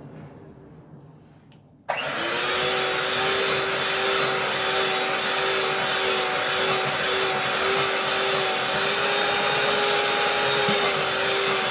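Handheld electric mixer running steadily with a whine, its beaters creaming peanut butter, cream cheese and sugar in a glass bowl. It starts suddenly about two seconds in.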